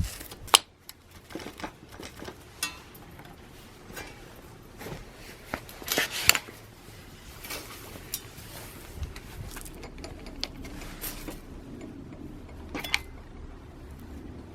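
Scattered clicks and clinks of hand tools and small metal parts being handled while a brush cutter is taken apart, with a sharp knock just after the start, a cluster of clanks about six seconds in and another knock near the end.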